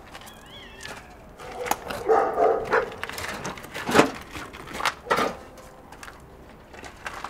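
A wheelbarrow loaded with firewood pushed over a stony yard, its wheel and load rattling, with sharp knocks about four and five seconds in. An animal calls a couple of seconds in.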